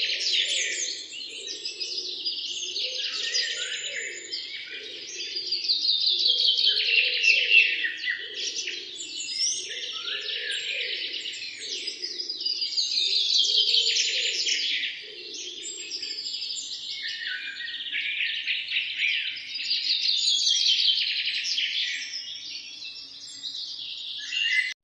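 Birds singing: a loud song of rapid trilled phrases that repeats about every six to seven seconds, over a softer, lower repeated call that stops about two-thirds of the way through.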